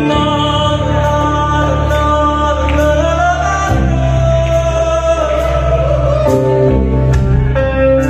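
Live band playing a slow song: long held bass and guitar notes under a singing voice.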